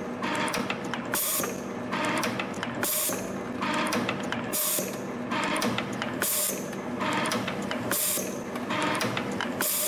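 YHM TF-series CNC torsion spring coiling machine running on 0.8 mm wire, with a steady hum under a regular work cycle: a short hiss and small clicks repeat about every 1.3 seconds.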